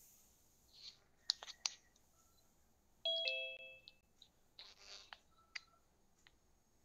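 Zoom's participant-join chime: a short falling two-note ding-dong about three seconds in, after a few sharp clicks about a second earlier.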